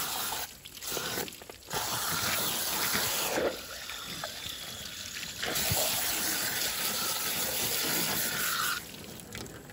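Garden hose with a pistol-grip spray nozzle spraying water onto a skinned chicken carcass to rinse it. The spray cuts out twice briefly in the first two seconds, runs weaker for a couple of seconds in the middle, then stronger again, and stops near the end.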